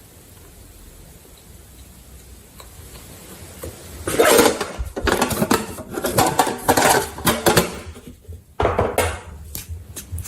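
Slime being worked in a container: a dense run of sticky clicking and crackling with some clatter against the container, starting about four seconds in and breaking off briefly near the end.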